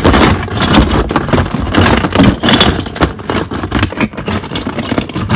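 Hands rummaging through a storage bin full of small plastic toy accessories, the pieces clattering and knocking together in a rapid, irregular jumble.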